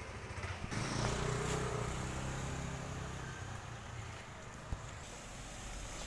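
A vehicle engine running steadily with a low hum, and a single sharp click about three-quarters of the way through.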